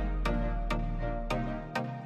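Instrumental background music with repeated notes over a held bass note that fades out near the end.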